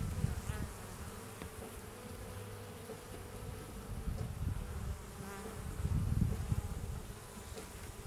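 Honeybees buzzing steadily around an open hive as a comb frame is set back in, a continuous hum with a low rumble swelling about six seconds in.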